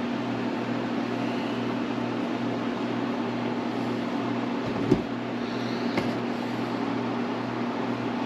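Steady low machine hum with a constant hiss, like a fan or air conditioner running in a small room. A sharp click about five seconds in and a fainter one about a second later.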